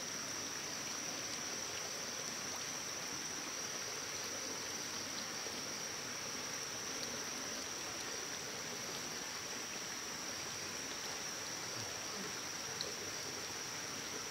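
Steady rushing of flowing stream water, with a continuous high-pitched insect drone on one steady tone over it.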